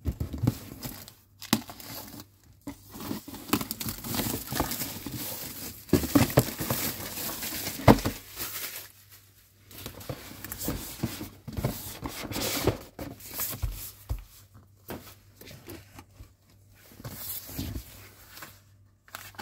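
Plastic shrink-wrap being torn and crinkled off a cardboard parts box, in irregular rustling bursts with short pauses, then the box and a paper magazine being handled. A sharp knock about eight seconds in is the loudest sound.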